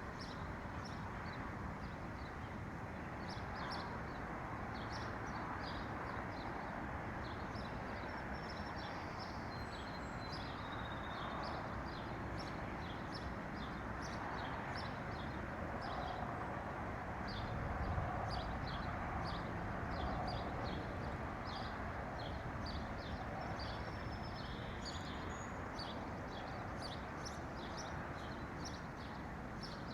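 Small songbirds chirping: many short, high calls following one another throughout, over a steady low rushing background noise.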